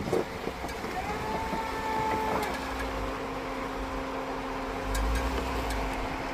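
Off-road vehicle engine running steadily as it crawls the rocks, with a few light clicks and a deeper rumble rising about five seconds in.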